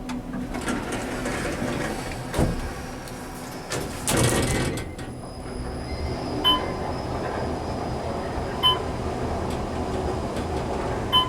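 Parking-garage elevator car running, with a steady low rumble. There is a short rattle about four seconds in, and short electronic beeps sound three times, about two seconds apart, in the second half.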